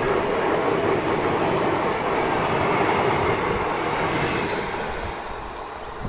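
Express train running past: a loud, steady rumble of wheels and coaches that fades away over the last two seconds.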